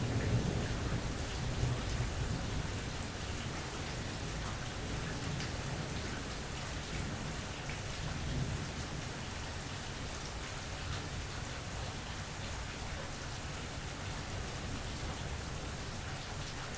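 Steady rain with individual drops ticking close by, under a low rumble of thunder. The rumble is strongest in the first few seconds, swells again briefly about halfway through, then fades away, leaving the rain.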